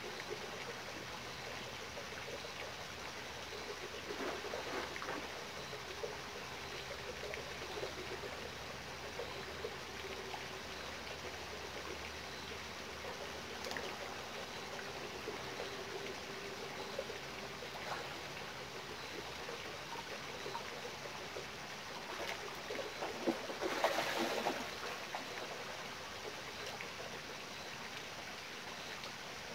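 Steady trickle of running water, with scattered faint clicks and one louder noisy burst about three-quarters of the way through.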